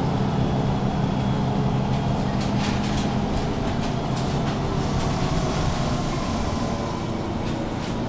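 MAN Lion's City G articulated bus under way, its diesel engine and ZF Ecolife automatic gearbox running with a steady low hum. The hum eases after about three seconds, with a few light rattles around then. A faint, slightly falling whine sounds near the end.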